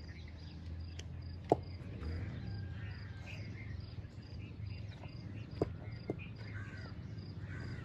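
An insect chirping in a steady rhythm of short, high pulses over a low background hum, with a few sharp clicks, the loudest about a second and a half in.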